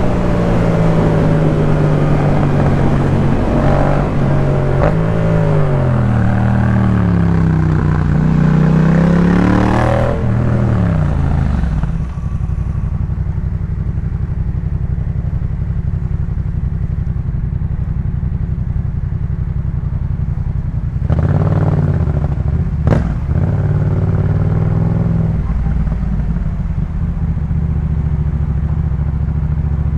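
Yamaha MT-07 parallel-twin running through a Jeskap K4 full exhaust system. For the first ten seconds the revs rise and fall as it rides through the gears, then they drop away to a steady low idle. A little past two-thirds through there is a brief lift in revs with a single sharp click.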